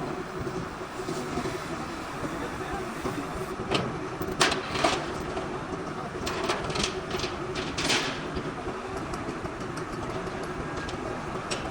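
Workshop background noise with a faint steady hum, and a run of sharp knocks and clanks between about four and eight seconds in.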